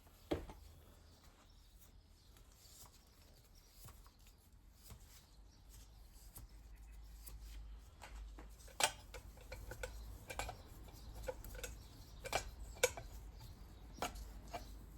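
Faint, scattered sharp metal clicks and taps of hand tools and bolts as the turbo's housings are refitted onto a new core, with a few louder clicks in the second half over a low steady hum.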